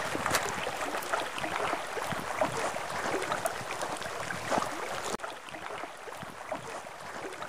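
Splashing and patter of water, with many small scattered clicks; the sound changes abruptly about five seconds in.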